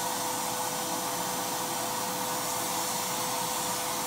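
Wagner Home Decor paint sprayer running: its turbine power unit blows air down the hose to the spray gun with a steady whine over a constant hiss, as paint is sprayed onto a test sheet. It's kind of loud.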